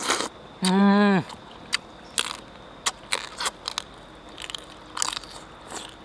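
Crunching and chewing of crispy roasted pork skin, bitten close up: a run of sharp crackling crunches. About a second in there is a short hum of a voice.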